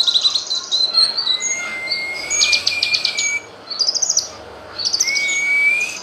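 Cucak kinoy, a leafbird, singing a varied song: a fast, high trilled phrase, then a long slowly rising whistle with rapid trills above it, a short pause, a few quick high notes, and a second rising whistle near the end.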